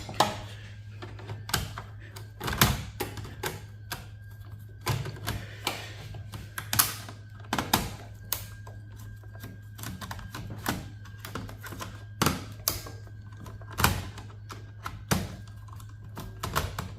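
Irregular clicks, taps and knocks of a screwdriver and metal server parts being handled while screws holding a board are removed, over a steady low hum.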